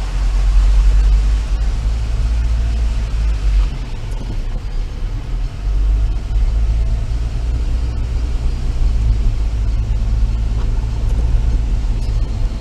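Steady low rumble of a car driving, its engine and road noise picked up by a dash cam inside the cabin.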